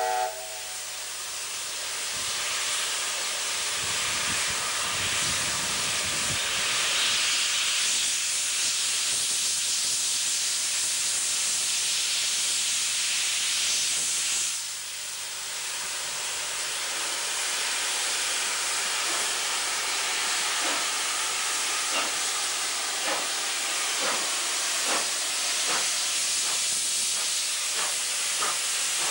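Steam hissing steadily from the cylinder drain cocks of streamlined NSWGR C38-class Pacific locomotive 3801. From about twenty seconds in, a regular knocking about once a second runs under the hiss.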